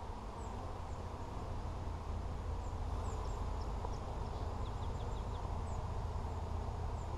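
Honeybees buzzing around an opened hive during a frame inspection: a steady hum of many bees, with a few short high bird chirps over it.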